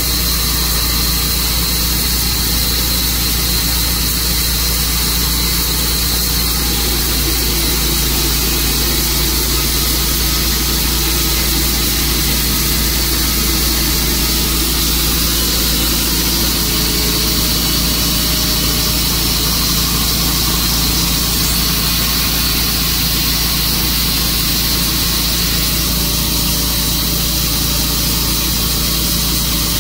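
Sawmill's engine running steadily at a constant speed.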